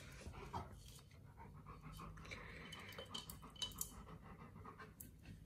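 Alaskan Malamute panting faintly, with a few light clicks.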